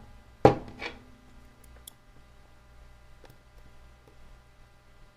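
Handling of a Samsung Galaxy Tab A tablet on a workbench while it is powered on: two sharp knocks close together about half a second in, then a few faint clicks and ticks.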